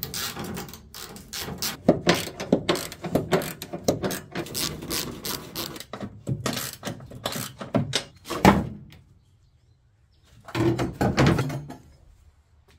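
Ratchet wrench clicking and bolts and steel parts clattering as the roof jig is unbolted from the car body, with a heavy thunk about eight and a half seconds in, a short pause, then another burst of clanking.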